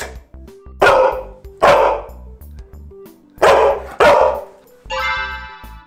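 A Labrador retriever barking on cue: four loud barks in two pairs, about a second apart within each pair, over light background music.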